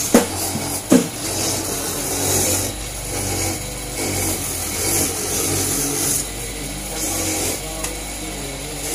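Motorised coconut grater running, with a coconut half pressed against its spinning toothed head and rasping in repeated swells over a steady motor hum. Two sharp knocks come in the first second or so.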